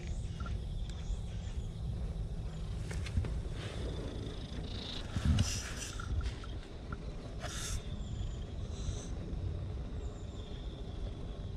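Cat purring close to the microphone, a steady low rumble, with a low bump about five seconds in and brief rustles of fur brushing against the camera a little later.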